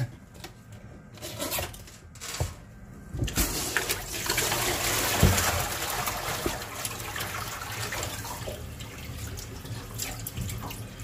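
Water and live fish poured from a fishing bucket into a stainless steel sink: a few handling knocks, then about three seconds in a loud gush of splashing water that slowly tapers off, with one heavy thud in the sink about five seconds in.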